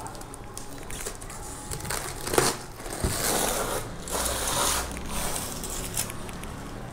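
Packaging crinkling and crunching as it is handled, with a sharp knock about two and a half seconds in and denser crunching for a couple of seconds after.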